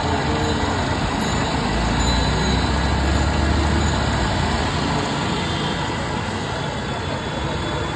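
Cotton candy machine running with a steady noise as pink floss spins out of its head, over street traffic. A deeper low rumble swells between about two and four and a half seconds in.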